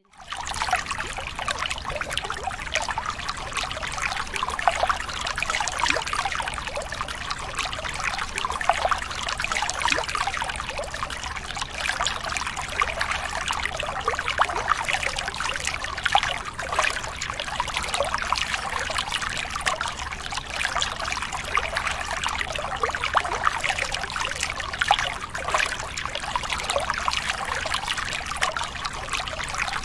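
Steady, dense noise of a large stadium concert crowd, with a low hum underneath.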